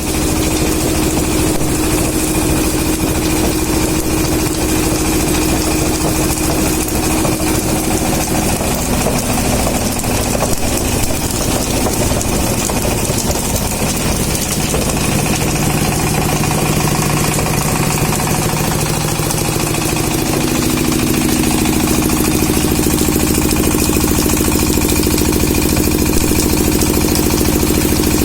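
Waste sorting-and-shredding machine running steadily, its mechanical hum shifting pitch several times.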